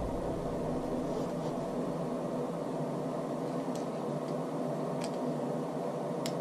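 Steady machine hum in a small room, like a fan or air conditioner running. A few faint light clicks from about halfway on, as the rifle's bolt and extractor are handled and refitted.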